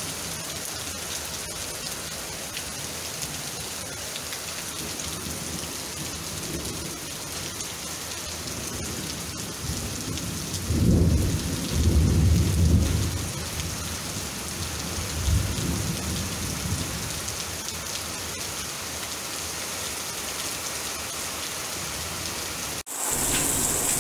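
Heavy rain mixed with sparse hail pattering steadily on roofs and leaves during a thunderstorm. Thunder rumbles loudly about eleven seconds in, with a weaker roll a few seconds later. Near the end the sound cuts abruptly to a louder, steadier rain hiss.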